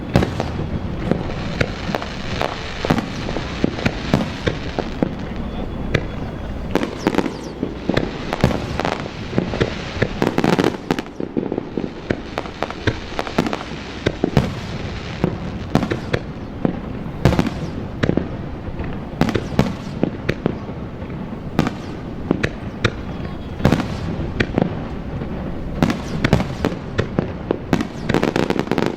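Fireworks display: aerial shells bursting in close succession, many sharp bangs one after another.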